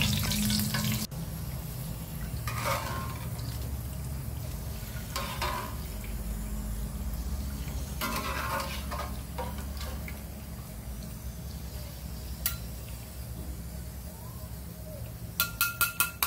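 Oil in a wok sizzles briefly at the start, then gives way to a steady low hum with a few soft scrapes and drips as fried shallots drain in a metal ladle above the oil. Near the end comes a quick, even run of light metallic clicks, about five a second.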